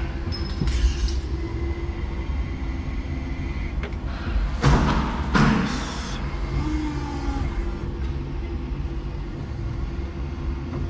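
Steady low machine rumble and hum heard from inside a forklift cab, with two short, loud noisy bursts about five seconds in.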